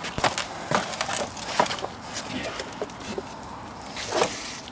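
Several sharp knocks and scrapes of precast concrete balusters being handled and seated between the base and the top rail, with a cluster in the first second and a half and one more about four seconds in.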